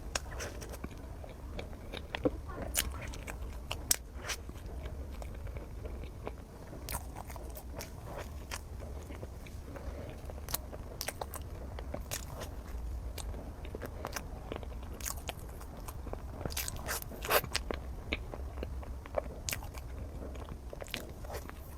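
Close-miked eating: a person chewing chocolate lava mille-crepe cake, with irregular wet mouth clicks and smacks and a few sharper, louder clicks.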